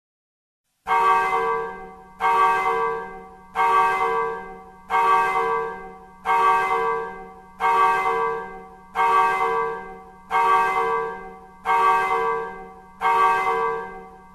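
A single church bell in the village steeple striking slowly, one stroke about every 1.4 seconds on the same note, each stroke ringing out and fading before the next. The strokes start about a second in. This is the bell striking eleven o'clock: ten strokes fall here and the eleventh just after.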